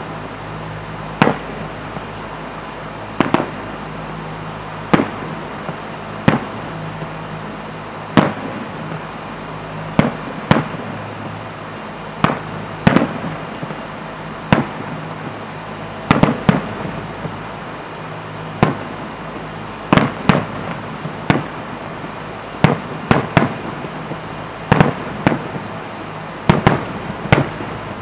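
Aerial firework shells bursting in a display: sharp reports one to two seconds apart at first, then coming faster and in clusters from about halfway through.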